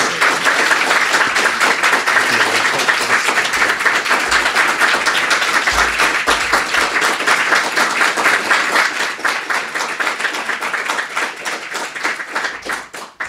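Audience applauding steadily, many hands clapping together, thinning to a few scattered claps in the last second before it stops.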